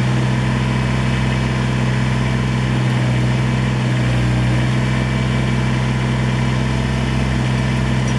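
Kubota BX23S tractor's small three-cylinder diesel engine running at a steady speed, without revving.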